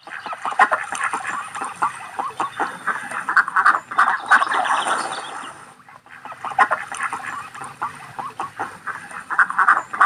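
A flock of ducks quacking in a dense, overlapping chatter, which dips briefly about six seconds in.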